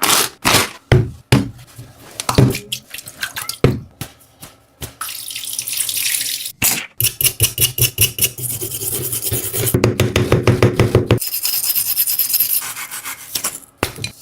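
Soft PU foam squishy toys being squeezed and handled close to the microphone: a run of sharp squishes and taps, then a denser stretch of rapid crackling squishes.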